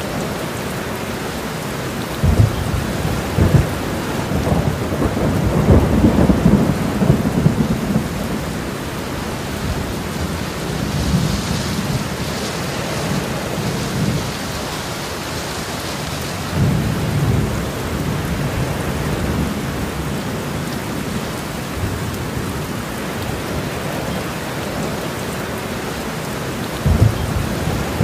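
Steady rain with low rumbles that swell and fade several times, strongest a few seconds in, with a short jolt near the end.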